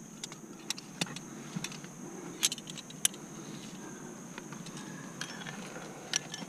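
Aluminium climbing carabiners and a cam clinking and snapping shut as the rope is clipped into protection. It comes as a string of sharp metallic clicks and jingles, the loudest about two and a half and three seconds in.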